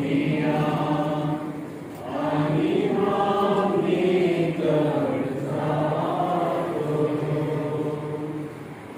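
A group of people singing a hymn together in slow phrases, with notes held about a second each and brief breaks about two seconds in and near the end.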